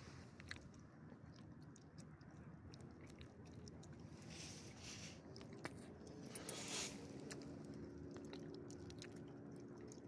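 Faint wet clicks and smacks of a small elderly dog chewing and licking her mouth close to the microphone.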